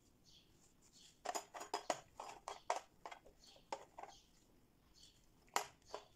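Metal and plastic cookie cutters and a metal piping tip clicking and clattering as they are handled and set down in a plastic tray. There is a quick run of knocks from about a second in, then a few scattered single clicks.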